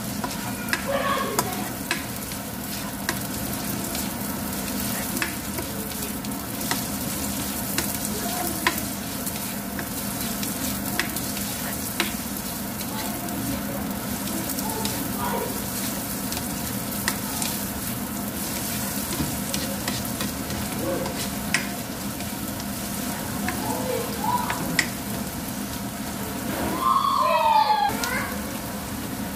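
Chopped onion and garlic sizzling in hot oil in a nonstick wok, with a spatula stirring and giving short clicks and taps against the pan. A brief, louder pitched sound cuts in near the end.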